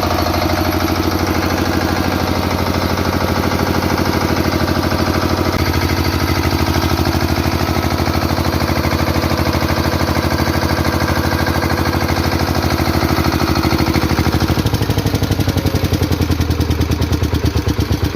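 Kirloskar 7.6 kVA diesel generator set running steadily with a fast, even engine beat. About fifteen seconds in the sound changes and starts to throb in pulses, roughly four a second.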